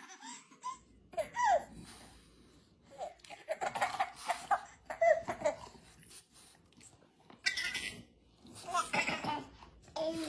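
A baby giggling and laughing in short fits, with brief pauses between them.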